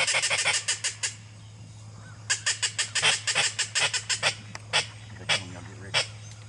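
Hand-held duck call blown in rapid runs of short, high, clipped notes to work ducks flying overhead. A loud, fast run comes at the start, a second run follows about two seconds in, then a few single notes.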